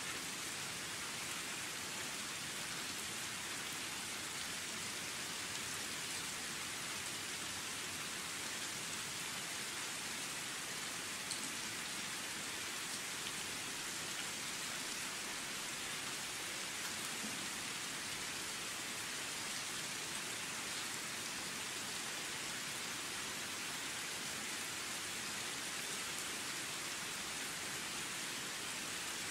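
Steady rain falling, an even hiss of many drops that keeps the same level throughout.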